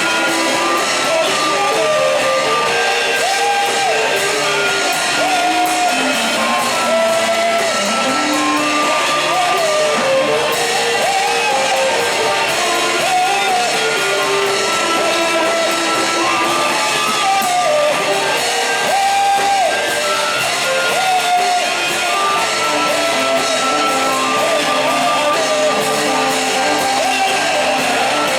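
Church worship music: a singing voice carries a melody of held, gliding notes over steady instrumental accompaniment.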